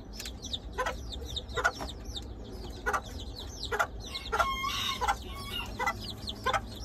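Chicks peeping over and over in short falling chirps, with a hen's short clucks about once a second, and one longer, drawn-out chicken call about four and a half seconds in.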